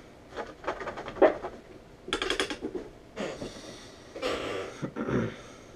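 Amateur radio transceiver speaker giving about four short bursts of garbled, hard-to-make-out voice and static, as other stations transmit on the net.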